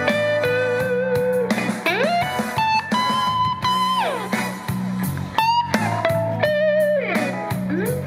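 Blues lead played on a cherry-red semi-hollow-body electric guitar: sustained single notes with string bends that rise and fall, and wavering vibrato on the held notes, over a steady repeating low bass line.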